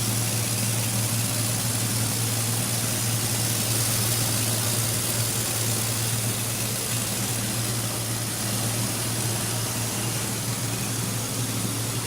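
Coffee pulping machine running steadily: an even motor hum with a hiss over it.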